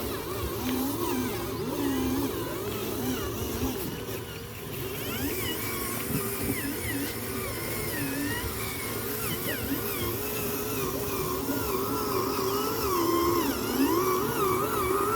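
Electric motors and gearboxes of radio-controlled construction models whining, several at once, their pitch rising and falling continually as the throttles and controls are worked.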